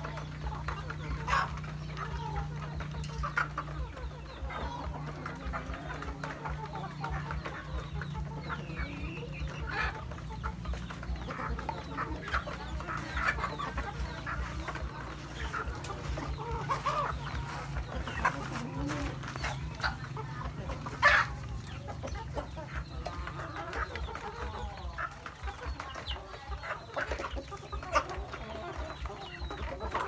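A flock of chickens clucking while feeding, with many short pecking taps and one sharper, louder tap about two-thirds of the way through. A low steady hum runs underneath for the first two-thirds.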